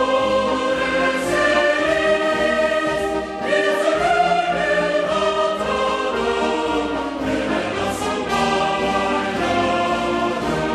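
Slow choral and orchestral music: voices and instruments holding long, sustained chords that shift every second or two.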